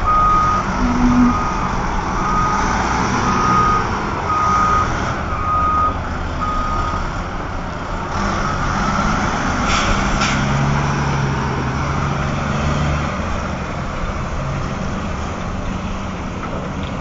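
A warning beeper on a Caterpillar 6040 mining excavator, sounding about once a second and stopping about seven seconds in, over a steady low machinery drone.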